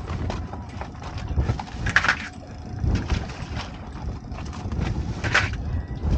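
Knocks, clicks and rattles of a lobster pot being handled and rebaited in a small open boat, over a low rumble of wind on the microphone. Two short, louder rasps stand out, about two seconds in and near the end.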